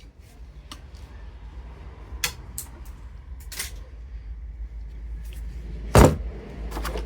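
Irregular clicks and knocks of tools and metal parts being handled while a hot water heater is taken apart, with one loud knock about six seconds in, over a low steady hum.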